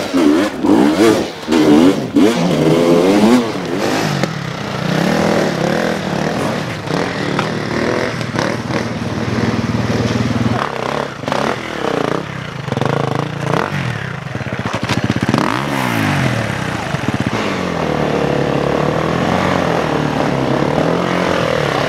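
Dirt bike engines revving repeatedly, the pitch rising and falling with each blip of the throttle. The revving is loudest in the first few seconds.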